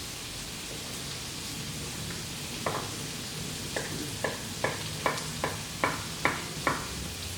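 Diced onion frying gently in olive oil, a low steady sizzle. About a third of the way in, a knife starts chopping zucchini on a cutting board: about nine sharp knocks, two to three a second.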